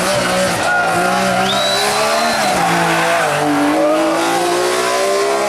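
Rally car engine running hard under load. Its pitch dips about two seconds in, then climbs steadily as the car accelerates.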